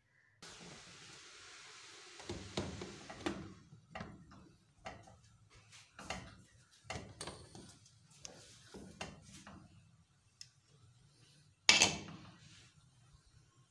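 Aluminium pressure cooker lid being fitted and closed: a run of short metal knocks and clicks, with one sharp, loud knock near the end.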